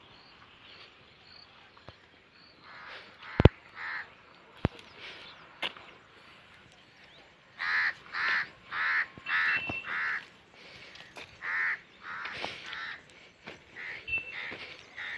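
A bird calling repeatedly with harsh, caw-like calls, about two a second, in bouts through the second half. A few seconds in there are two sharp clicks about a second apart, the loudest sounds here.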